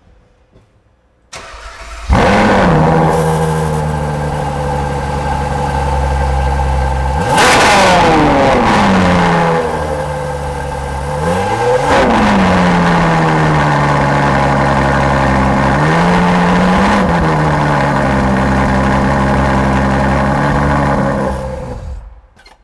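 Ferrari supercar engine started, flaring briefly as it catches and settling to idle, then revved twice with rising and falling sweeps and blipped once more lightly before being shut off near the end.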